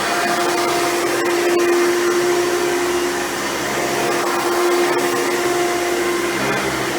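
Hoover Runabout canister vacuum running steadily, its motor giving a constant whirring hum with a held tone, its level rising and falling a little as it is worked, with a few faint clicks.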